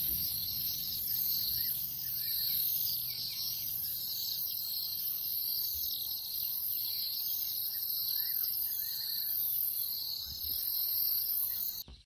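Steady, high-pitched chorus of insects chirring in the bush, with a faint low rumble underneath; it cuts off suddenly near the end.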